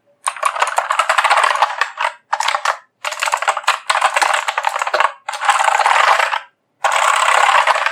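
Redgear Shadow Blade mechanical keyboard with clicky blue switches, keys hammered rapidly in about five quick bursts of keystrokes with short pauses between.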